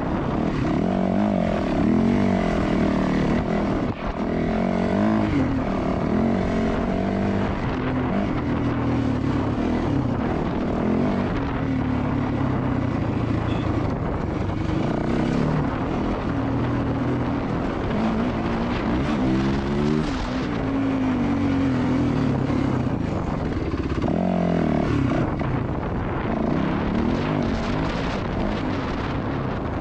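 Yamaha WR450F four-stroke single-cylinder dirt bike engine running hard under the rider, its pitch repeatedly rising and falling as the throttle is opened and closed through the gears.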